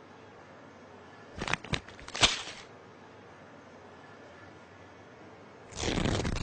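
Cartoon sound effects: a few sharp clicks and a short crackle about a second and a half in, then a dry papery rattle near the end as seeds are shaken out of a paper seed packet.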